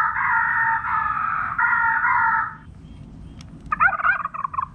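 Recorded crow caws played through the horn speaker of a Phantom Calls electronic game caller, a quick run of caws that stops about two and a half seconds in. Near the end, after a few clicks, the caller plays a short, rapidly warbling call of a different kind.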